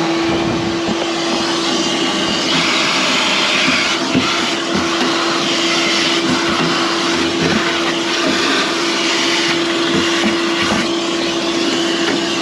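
Vacuum cleaner running steadily with one constant motor tone, its suction noise swelling and easing as the nozzle works over the dusty furnace interior.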